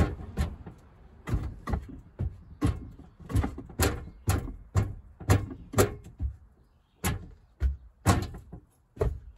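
Sharp mechanical clicks and knocks, about two a second with a short pause partway through, as a heavy metal lathe is let down a little at a time on straps.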